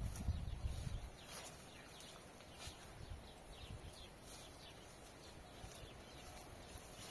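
Faint chirps of small birds over quiet outdoor ambience, with a few low thumps in the first second.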